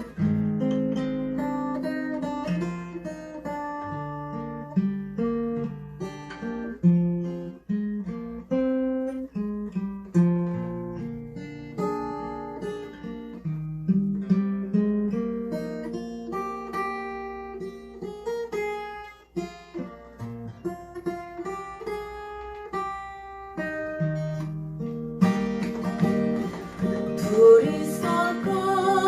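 Acoustic guitar playing an instrumental break in a slow ballad, mostly single picked notes, turning to fuller strummed chords near the end.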